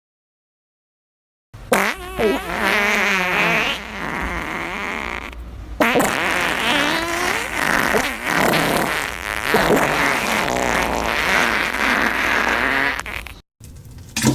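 Fart sound effect: a long run of farting noises with a wobbling, bending pitch, starting after a second and a half of silence, with a brief dip early on and cutting off suddenly near the end.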